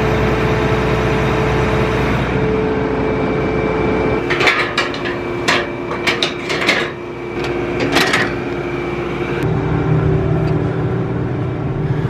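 John Deere S770 combine running, a steady hum with a few held tones. From about four seconds in, a string of metallic knocks and clanks as someone climbs the combine's steps and grab rail. About nine and a half seconds in, the hum shifts to a deeper tone.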